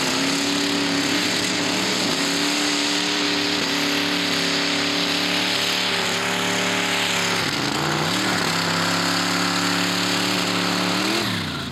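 Modified pulling tractor's V8 racing engine at full throttle hauling the sled, running at steady high revs. It sags briefly in pitch about eight seconds in and recovers, then the revs fall away near the end as the throttle comes off.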